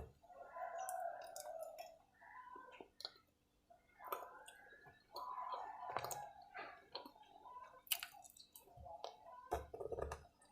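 A person chewing water-soaked white chalk: wet mouth sounds with small clicks, in bouts with a short pause about three seconds in.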